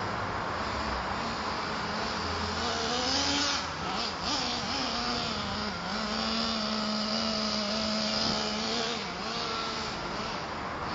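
Small two-stroke glow engine of a GV Mammoth nitro RC monster truck running as the truck is driven. Its pitch rises and falls with the throttle for the first few seconds, holds steady for about three seconds in the middle, then wanders again.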